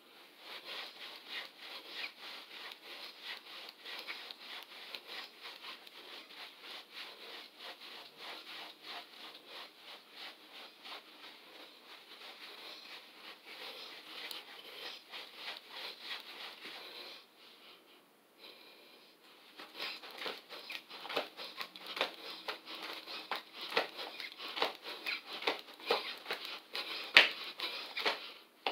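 Rhythmic noise of a person exercising, about two strokes a second. It breaks off for about two seconds past the middle, then comes back louder, with one sharp thump near the end.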